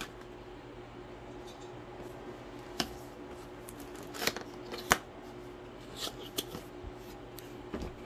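Cardboard product box being opened by hand: a tape tab peeled and the box flaps pried loose, giving a handful of short, sharp cardboard clicks and rustles over a faint steady hum.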